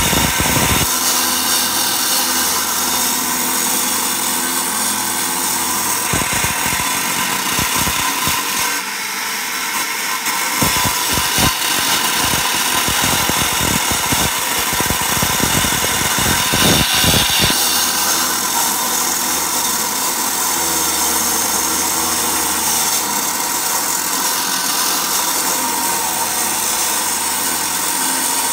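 Cut-off saw running and cutting into concrete, a continuous loud grinding noise, with uneven low knocking through the middle stretch.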